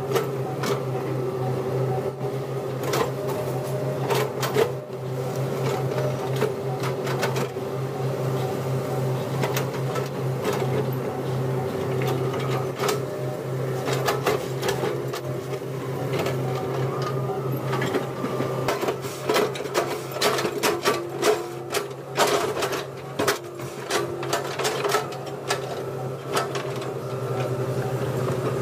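Excavator's diesel engine running steadily under work, with frequent sharp knocks and clanks over it that come thicker in the second half.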